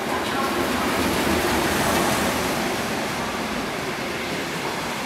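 DF11 diesel-electric locomotive and its 25Z passenger coaches passing through at speed without stopping: a loud rushing of locomotive and wheels on rails. It is loudest about two seconds in, as the locomotive goes by, then eases a little to the steady rolling of the coaches.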